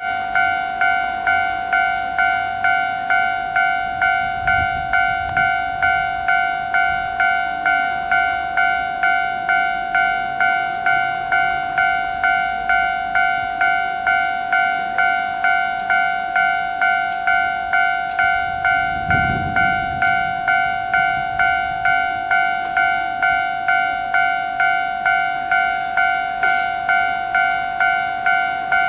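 Japanese railway level-crossing alarm ringing, a bright two-tone electronic bell struck about three times every two seconds, each strike dying away before the next. It signals that the crossing is closed for an approaching train.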